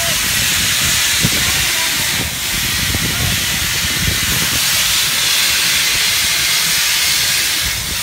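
Steam locomotive 3642, a New South Wales C36 class 4-6-0, venting steam with a loud, steady hiss as it stands at the platform.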